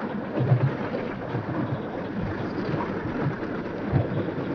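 Wind buffeting the microphone over the rumble and rattle of a Battambang bamboo train (norry) running along the rails, with a couple of heavier thumps, about half a second in and near the end.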